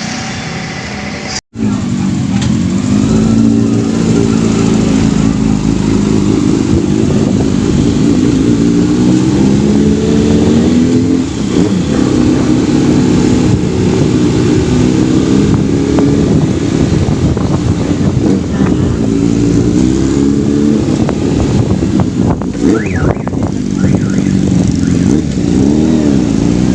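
Freshly rebuilt Yamaha FZ750 inline-four engine pulling hard on the road, its pitch climbing and then dropping back again and again as it is run up through the gears. The sound cuts out briefly about a second and a half in.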